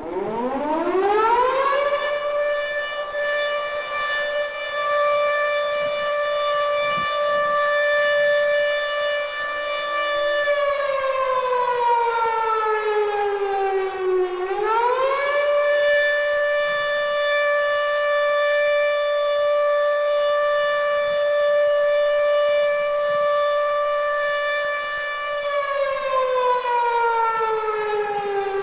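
Air raid siren sounding the all clear: a tone that winds up over about two seconds, holds steady for about nine seconds, then slides down and winds up again, twice.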